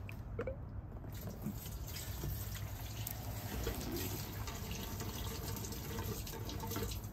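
Gasoline pouring from a gas can spout into an empty IMS oversize crosslinked-polyethylene motorcycle fuel tank. It is a steady, splashing fill that starts about a second in.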